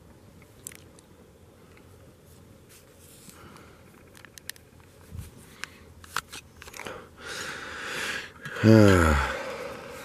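Handling noises: scattered crunches and clicks as someone moves about inside a vehicle, then a rising rush of noise. Near the end comes a loud, short, low groan that slides down in pitch.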